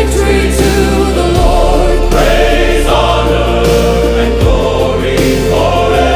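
Choral religious music: a choir holding sustained chords over a deep bass, changing chord every second or two.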